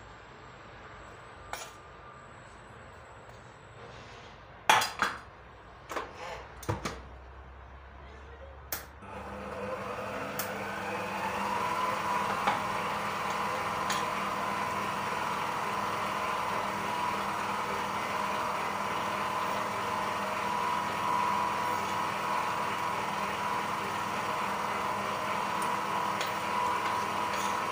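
A few sharp knocks and clicks at the bowl and mixer head, then about nine seconds in the Emsan stand mixer's motor starts, rises in pitch over a couple of seconds and holds a steady whine as it mixes the dry ingredients into the whipped egg yolks.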